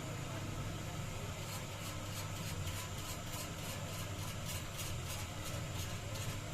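Steady low mechanical hum with a hiss, with faint rapid ticking in the middle.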